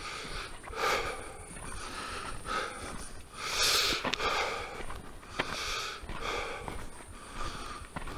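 A hiker's breathing while walking, puffs every second or two, with light footsteps on a trail.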